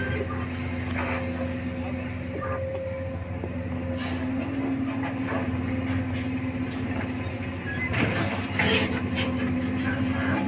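Komatsu PC200 long-arm excavator's diesel engine running steadily under load while the machine swings and dumps soil, with a few clanks about four and eight seconds in.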